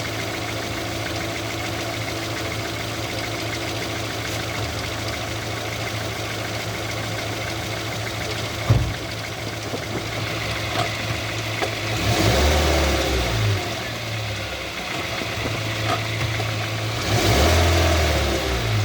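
Car engine running with a steady hum, and a single sharp clunk about halfway through: the clunk that comes when the brakes are applied. Later there are two louder noisy spells.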